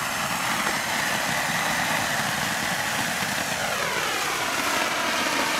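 Nico handheld Bengal flare burning with a steady hiss, its tone slowly shifting up and down as the flare is moved about.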